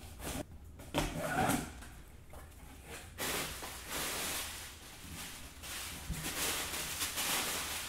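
A knife slitting packing tape and the cardboard flaps of a shipping box being pulled open, with a louder scraping rasp about a second in. From about three seconds, plastic air-pillow packing rustles steadily as it is lifted out of the box and tossed aside.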